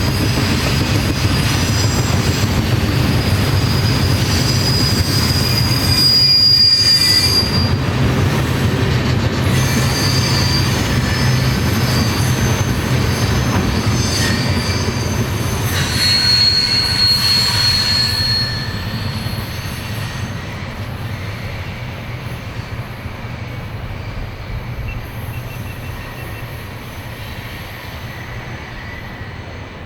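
Freight train cars rolling past with a steady rumble and high, drawn-out wheel squeals, one a few seconds in and another just past the middle. The sound fades away over the last third as the train moves off.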